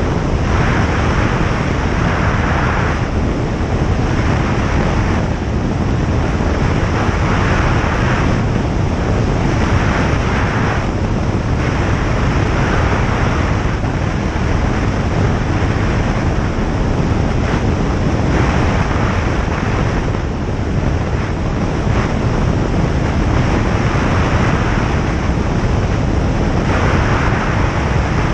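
Single-engine light aircraft in cruise: a steady drone of engine, propeller and airflow in the cockpit, with a hiss that swells and fades every few seconds.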